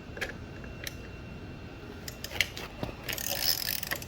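Ratchet wrench clicking as a frame-slider bolt is cranked down tight. There are a few separate clicks, then a quicker run of clicking about three seconds in.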